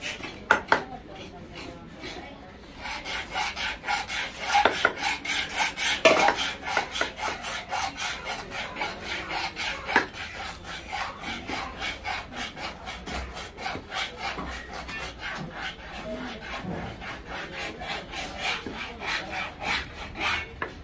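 A large knife cutting boneless sea-fish flesh into cubes on a wooden chopping block: quick, even sawing strokes, about four a second, with a few sharper knocks of the blade on the wood.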